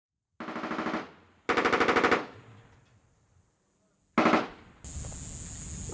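Belt-fed Army machine gun firing three bursts of automatic fire: a short burst, a slightly longer one, then a very short one. Near the end the gunfire gives way to a steady hiss.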